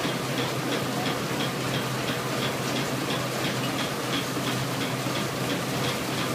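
Burrell 7nhp single-crank compound traction engine driving a Marshalls threshing machine by belt: a steady running hum with an even light ticking about three times a second.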